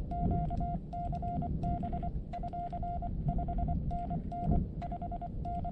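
Morse code from a portable ham transceiver: one steady mid-pitched beep keyed in dots and dashes, the CW sidetone of code being sent with a paddle. Low rumble lies underneath.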